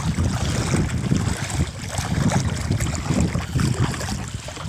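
Wind buffeting the microphone in uneven gusts, over shallow seawater sloshing around wading legs.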